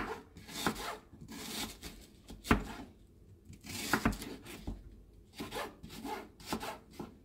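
Kitchen knife slicing a white onion on an end-grain wooden cutting board: a string of rasping cuts through the onion, several ending in a sharp knock of the blade on the wood.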